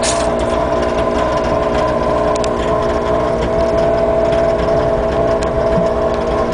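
Nissan Elgrand's VQ35DE 3.5-litre V6 running steadily, with a faint tick here and there. The owner is asking about an unexplained knocking from this engine.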